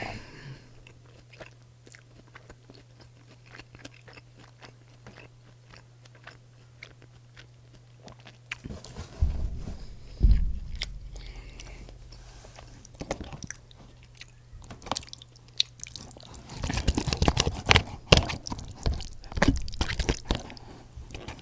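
Close-miked eating: chewing with small wet clicks, a couple of low thumps about nine to ten seconds in, then a stretch of dense crunching near the end, typical of biting into the crisp breaded crust of a fried pork cutlet. A steady low hum runs underneath.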